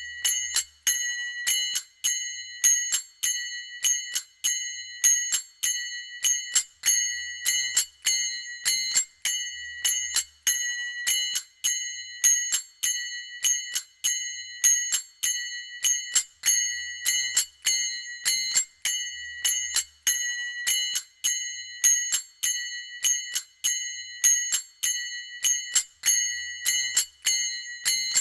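Manjira, small Indian hand cymbals, struck together in a steady looping rhythm at 100 bpm, each clash ringing briefly before the next.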